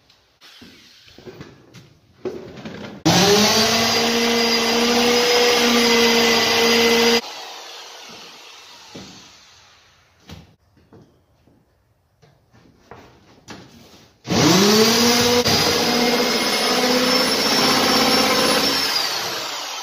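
Corded electric drill run twice into the wall framing, about four seconds and then about five seconds. Each run rises quickly in pitch as the motor spins up, then holds steady. The second run falls in pitch as it winds down near the end, and there are small knocks of handling between the runs.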